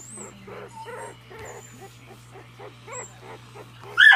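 Miniature dachshund puppies whimpering and grunting softly in quick, short calls, then one loud, sharp bark near the end.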